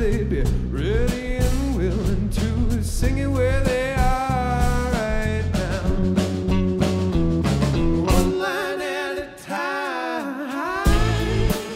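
Funk jam band playing live: a male voice singing over electric guitar, bass and drum kit. About eight seconds in, the bass and drums drop out, leaving the voice and guitar, and the full band comes back in near the end.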